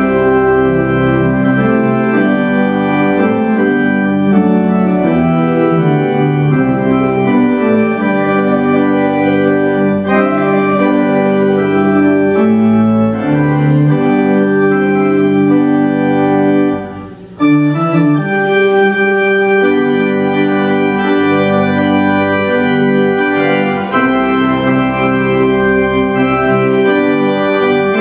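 Church organ playing sustained chords. There is a brief break about seventeen seconds in, then the music carries on.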